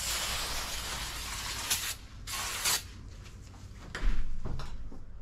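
Aerosol spray can of wax and grease remover hissing as it is sprayed onto the jet ski hood: one long spray of about two seconds, then a shorter burst. A dull thump follows about four seconds in.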